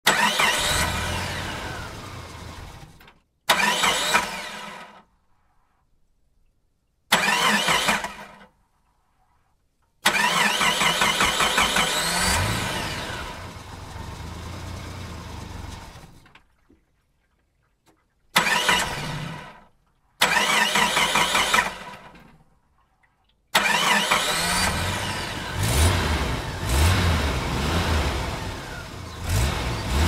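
A series of about seven separate vehicle engine start-ups, each beginning suddenly as the engine catches, with the pitch rising, then dying away or cutting off, with silent gaps between them. The last one, starting about three quarters of the way in, is revved several times.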